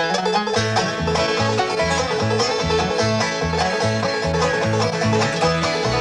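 Old-time string band starting an instrumental: clawhammer banjo and picked guitar over an alternating bass rhythm, kicking in all at once.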